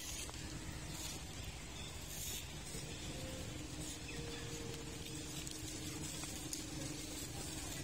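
Steady outdoor background hiss with a faint, even low hum and a few light ticks; no animal calls stand out.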